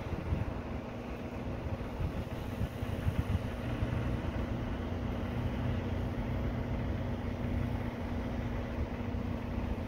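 Wind rumbling on the phone's microphone, over a steady low hum.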